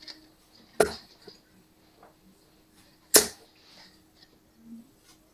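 Steel-tip darts striking a Winmau bristle dartboard: two sharp thuds, about a second in and about three seconds in, with a third landing right at the end.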